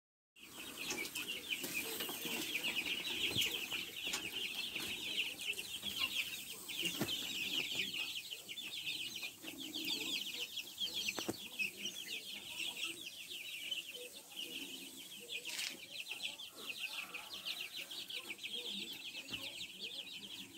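A brood of young chicks peeping continuously, many high-pitched cheeps overlapping at once, starting about half a second in.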